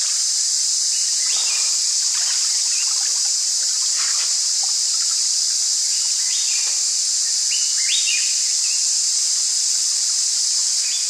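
Steady chorus of night insects, a constant high-pitched hiss, with scattered short chirps over it.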